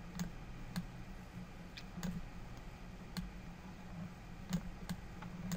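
Computer mouse clicking several times at irregular intervals over a low steady hum.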